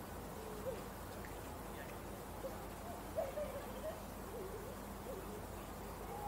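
Faint, low wavering hooting calls, several times, over a steady background hum.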